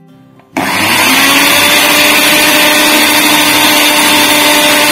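Electric mixer-grinder switched on about half a second in, its motor whining steadily at full speed as it blends a wet red-chilli sauce in its small jar.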